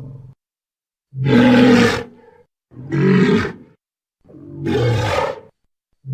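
Dinosaur roar sound effect, repeated: three roars of about a second each with short silent gaps between them, and a fourth beginning at the very end.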